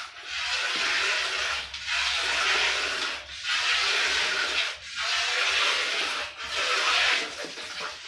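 Milk squirting from a cow's teats into a metal pail during hand milking: a hissing spray in stretches of about a second and a half, with short breaks between.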